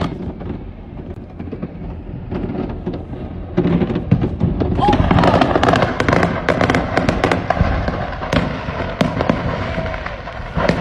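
Many fireworks going off in rapid succession, a dense string of bangs and crackles that grows louder and thicker from about three and a half seconds in.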